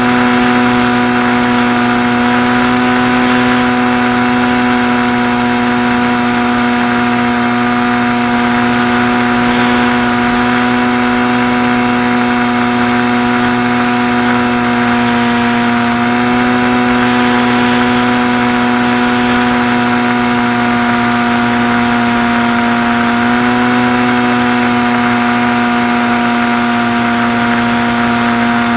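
Skywalker RC plane's electric motor and propeller running at a steady high pitch over a hiss. The pitch steps up slightly twice, about halfway through and again near the end, as the throttle shifts.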